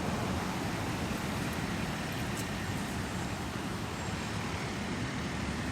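Steady road noise of a moving vehicle: an even low rumble with no distinct events.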